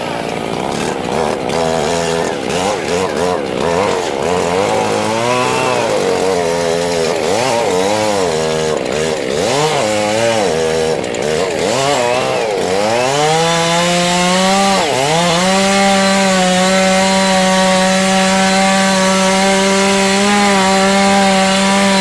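Stihl two-stroke chainsaw running, its engine pitch swinging up and down over and over as the throttle is worked. After one sharp dip in the middle, it settles into a steady high-pitched run for the last several seconds.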